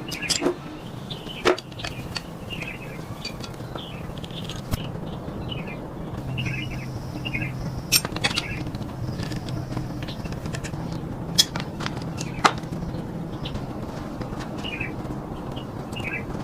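Small birds chirping in short repeated calls over a steady low hum, with a few sharp clicks or knocks, about five in all.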